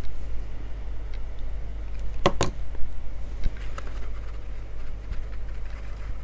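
Two sharp clicks close together about two seconds in, from a plastic liquid-glue bottle being handled and set down on the craft mat, with a few faint ticks of hands working on paper card, over a steady low hum.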